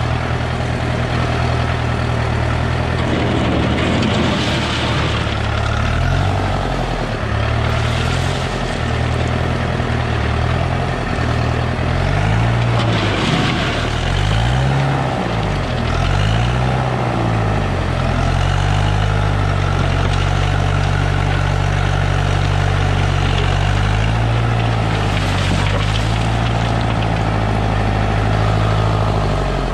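International B-275 tractor's diesel engine running under load, its revs dipping and recovering several times in the middle, then holding steadier.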